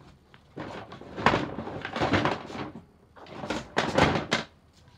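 Rummaging and handling noise: four bursts of clattering and bumping as objects are moved about and pulled out, the loudest about a second in and near four seconds in.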